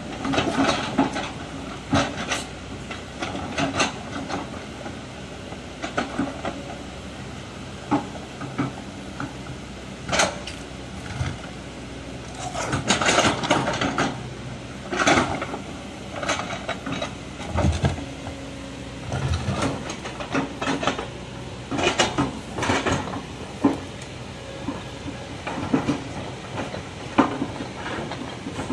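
Kobelco hydraulic excavator's diesel engine running steadily under load while its steel bucket pushes and shifts a large boulder over rocky ground, with repeated clanks, knocks and scraping of steel on rock.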